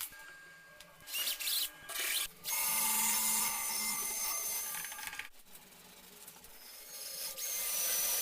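Workshop tool work on a motorbike part: short bursts of scraping and rubbing, then a tool running steadily for about two and a half seconds in the middle, a quieter spell, and the scraping building up again near the end.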